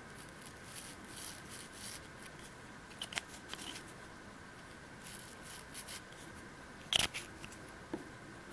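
Light handling sounds of hands working with fly-tying materials and a glue tube at a vise: soft rustles and a few small clicks, the sharpest about seven seconds in, over a faint steady hum.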